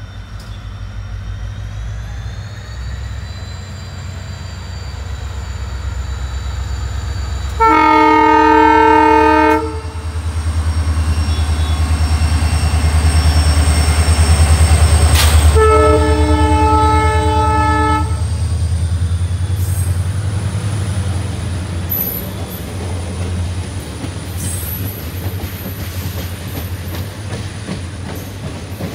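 WDG-4D diesel-electric locomotive, with its two-stroke EMD engine, approaching and passing at speed; the engine rumble builds to its loudest as it goes by. It gives two blasts on its multi-tone air horn, each about two seconds long, the first about 8 seconds in and the second about 16 seconds in. The passenger coaches then roll past, their wheels clicking over the rail joints.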